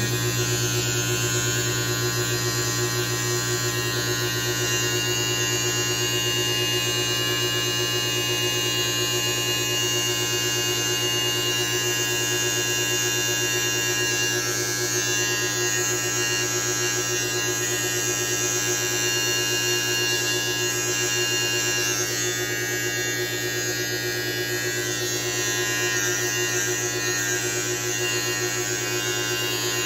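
Electric beard trimmer with a metal T-blade running with a steady buzz as it cuts beard hair along the cheek and sideburn.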